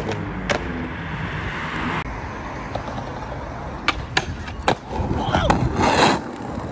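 Skateboard wheels rolling on concrete, then several sharp clacks about four seconds in as the board is popped and slaps down on a jump down a stair set. A louder rush of noise follows near the end.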